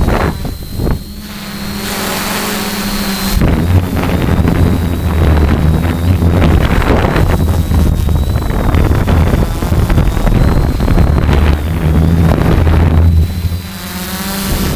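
Multirotor's electric motors and propellers running, heard from the camera on board, with wind rumbling on the microphone. A thin whine holds steady while the low hum shifts as the throttle changes, dipping briefly about a second in and again near the end.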